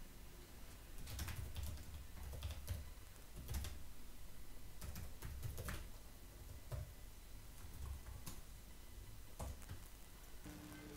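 Typing on a computer keyboard: faint, irregular keystroke clicks starting about a second in.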